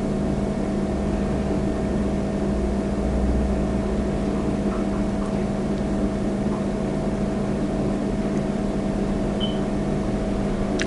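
A steady low machine hum with a faint drone, even and unchanging throughout.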